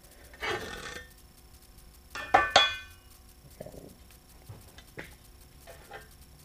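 Steel square knocking and scraping against a steel I-beam as it is moved and set in place: a short scrape near the start, a sharp ringing double clank about two seconds in, then a few light ticks.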